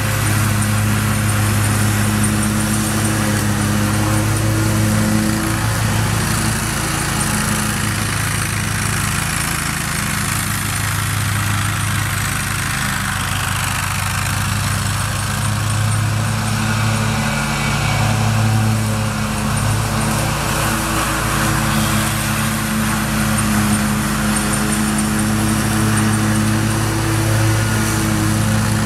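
John Deere 915B zero-turn mower with a 25 hp Kohler engine, running steadily while mowing. The engine hum drops a little in the middle as the mower moves farther away, then grows again as it comes back.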